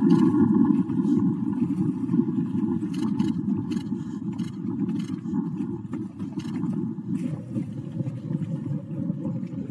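Motorboat engine running steadily, heard together with wind and water rushing past the microphone. A steady low tone joins about seven seconds in.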